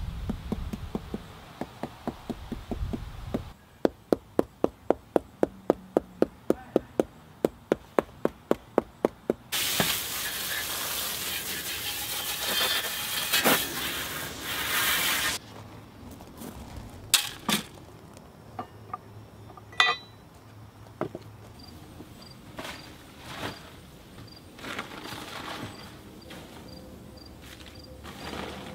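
A run of sharp, evenly spaced taps, about three a second, then a water jet from a hand-held nozzle hissing into a plastic wheelbarrow for about six seconds as it is rinsed out. After it come scattered knocks, with insects chirping faintly near the end.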